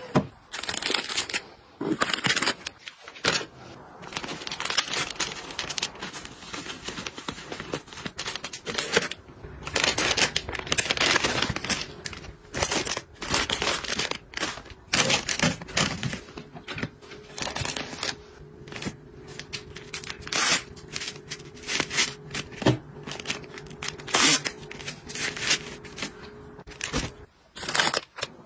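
Plastic wrapping of soft tissue packs crinkling and rustling in irregular bursts as the packs are handled, with tearing as a pack is pulled open.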